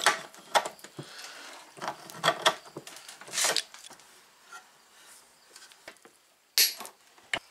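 Hand tools knocking and scraping on a trolling motor's metal shaft and plastic housing as it is forced apart in a bench vise: an irregular string of clanks and scrapes, quieter after about four seconds, with a short harsh scrape near the end.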